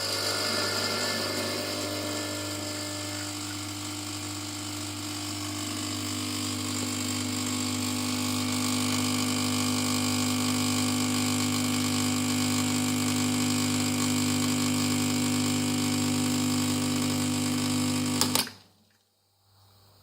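Lelit PL41 espresso machine's vibratory pump buzzing steadily while pulling a shot, its tone firming up as pressure builds, then cutting off suddenly about 18 seconds in.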